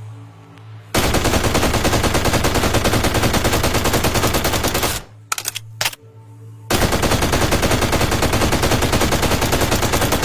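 M2 carbine firing full-automatic: two long bursts of rapid, evenly spaced shots, each about four seconds long, with a short pause between them.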